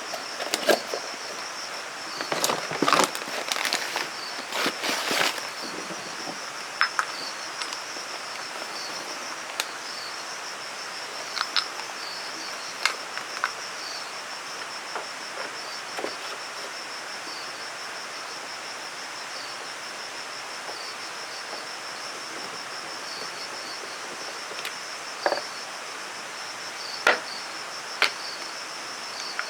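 An insect trilling steadily at a high pitch in fine, even pulses. Sharp clicks and knocks cluster in the first few seconds, with a few single clicks later.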